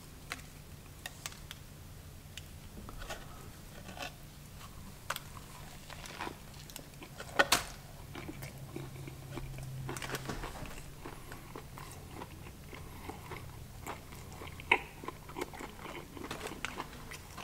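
Close-up biting and chewing of a biscuit topped with fried Cajun crispy shrimp, with irregular crunches and wet mouth sounds and a few louder crunches along the way.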